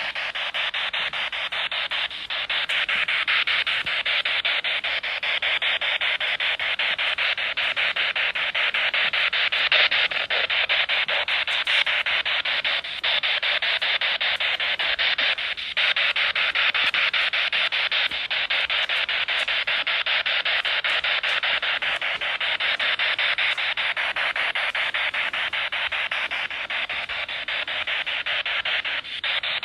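Steady static hiss with a fine rapid flutter, briefly dipping a few times.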